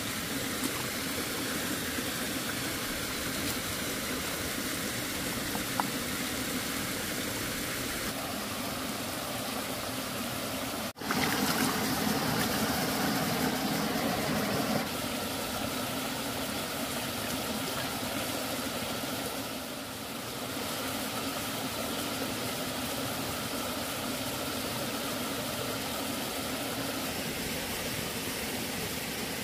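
Steady rush of a shallow forest stream running over rocks, with water sloshing through a woven bamboo basket as it is dipped and rinsed in the stream. The sound is briefly cut off about a third of the way in and comes back a little louder.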